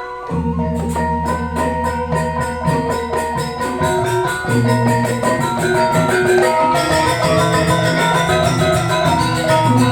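Balinese gamelan ensemble playing: bronze metallophones ring in fast, even interlocking figures, with a deep gong stroke entering about a third of a second in and ringing for several seconds.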